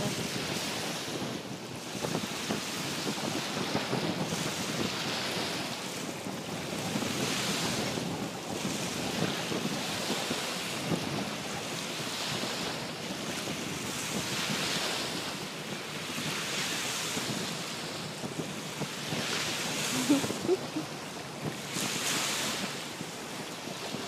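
Wind buffeting the microphone on an open beach: a steady rushing noise that swells and eases every couple of seconds.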